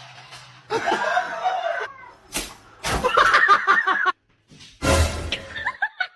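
People laughing in several short bursts, broken by brief gaps.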